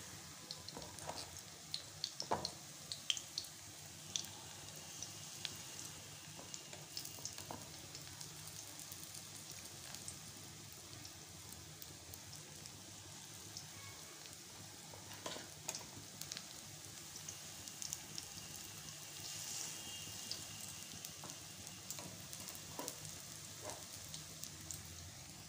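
Gram-flour (besan) pakora batter deep-frying in hot oil in a wok: a steady sizzle with scattered pops and crackles, a few sharper ones in the first few seconds.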